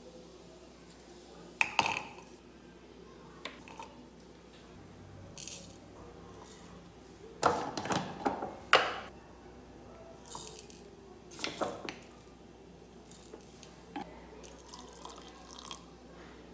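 Ingredients dropped into a small mixer-grinder jar: scattered clicks and knocks as garlic cloves and spices go in, with the loudest cluster of knocks about eight seconds in.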